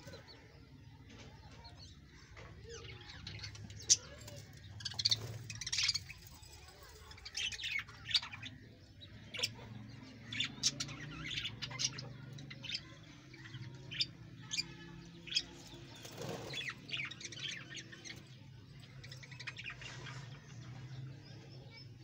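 A colony of budgerigars chirping in short, scattered calls, a few of them sharp and loud, over a low steady hum.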